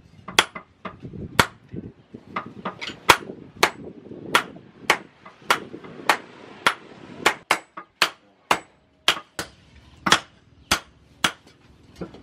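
Hammer blows on a red-hot bearing-steel knife blade lying on a steel anvil, hand-forging it into shape. The sharp metallic strikes come at about two a second, a few in quick succession around the middle, and stop shortly before the end.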